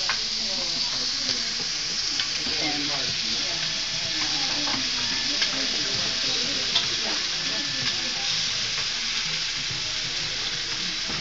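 Pieces of jerk chicken sizzling steadily as they fry in several pans on an electric cooktop, with a few sharp clicks of utensils against the pans.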